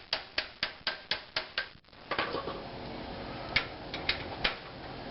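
Ratchet wrench clicking at about four clicks a second as it spins the already-loosened 35 mm axle nut off the hub, stopping less than two seconds in. This is followed by three light metal clinks.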